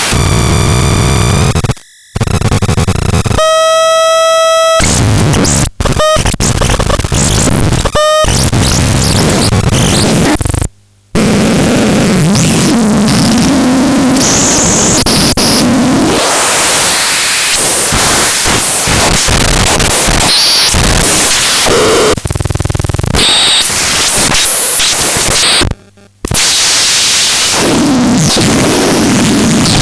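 Loud harsh electronic noise, a dense wall of static with abrupt cut-outs to silence about two, eleven and twenty-six seconds in. A steady buzzing tone with many overtones stands out for about a second and a half around four seconds in, and short pitched blips follow.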